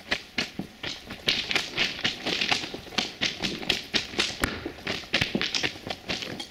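Footsteps crunching on the stone ballast of a railway track, quick regular steps about three a second.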